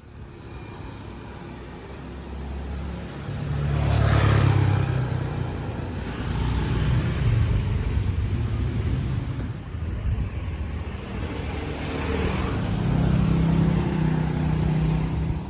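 Road traffic: motor vehicle engines running as vehicles pass, swelling louder about four seconds in, again midway and once more near the end.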